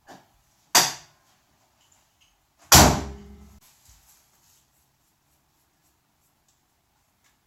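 A car hood being shut: two slams about two seconds apart, the second much louder, with a short ringing decay.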